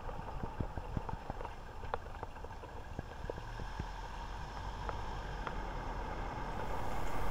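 A car rolling slowly, heard from inside the cabin: a low steady rumble of engine and tyres with scattered small ticks and clicks. Near the end a steady hiss fades in and grows louder.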